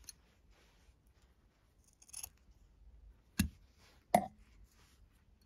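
Scissors snipping through 4 mm nylon paracord to trim a cord end: a fainter click about two seconds in, then two sharp snips about three and a half and four seconds in.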